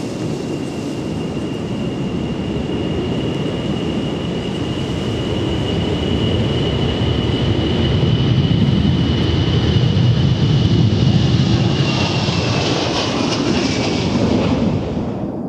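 Ilyushin Il-76MD's four D-30KP turbofan engines at takeoff power: a steady high whine over a deep rumble that grows louder. Near the end the whine drops in pitch as the jet goes past, then the sound falls away sharply.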